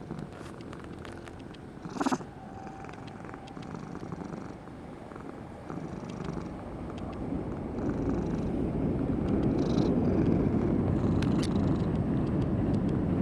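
Cat purring, low and steady, growing louder in the second half. A short sharp noise about two seconds in.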